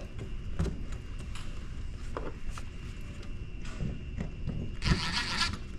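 Scattered light knocks and clicks from handling a ceiling speaker strobe and pushing its wiring up into the box, with a brief scraping rustle about five seconds in.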